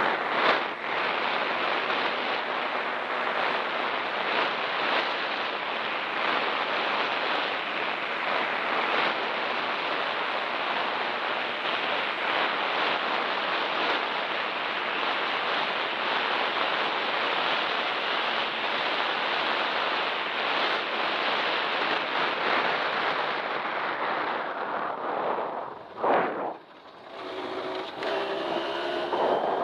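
Derbi Extreme 50cc two-stroke dirt bike being ridden, its engine mostly buried under steady wind rush on the microphone. Near the end the rush drops out briefly and the engine's buzzing note comes through.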